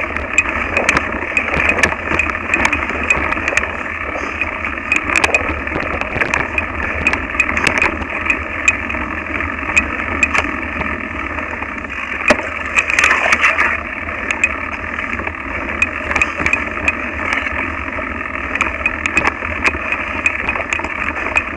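Mountain bike running over a rough dirt singletrack, heard through a camera mounted on its handlebar: a steady rattling rumble with many short, sharp clicks and knocks as the bike jolts over the ground.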